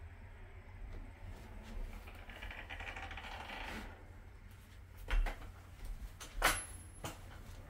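A wooden interior door pushed open with a soft scrape lasting about a second and a half, then a few sharp clicks and knocks.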